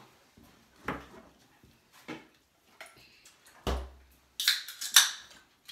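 Dishes and serving utensils clinking and clattering on a dinner table, in scattered knocks, with a dull thump about two-thirds of the way through and a quick burst of clatter soon after.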